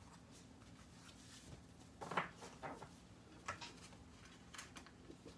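Quiet handling of paper: a few brief rustles and light taps as sheets of card stock are picked up and set down, the loudest about two seconds in.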